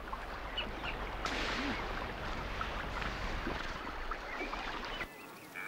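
A hippo wallowing in water: a steady wash of splashing and sloshing that cuts off about five seconds in.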